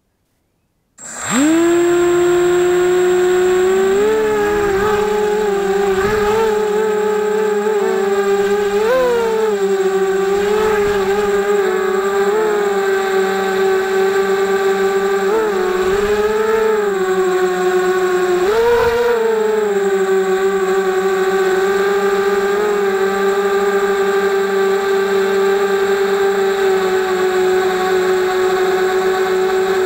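FPV drone's motors and propellers heard close up from its onboard camera: a loud whine that starts about a second in as the motors spin up, swells briefly in pitch several times during the first twenty seconds, then holds steady.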